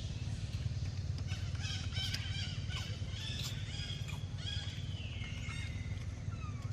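Short, high-pitched chirping animal calls, some falling in pitch, over a steady low rumble. The calls come mostly from about a second in until near the end.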